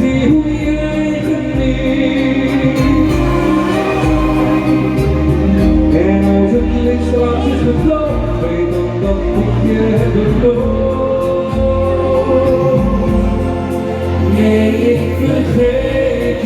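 Dutch-language pop song with singing, played over a steady beat with a bass line.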